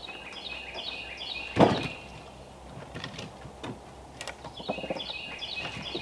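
Split firewood knocking as pieces are handled on a woodpile, with one hard wooden knock about one and a half seconds in as the loudest sound and a few lighter knocks after. A bird sings a quick run of stepped high notes near the start and again near the end.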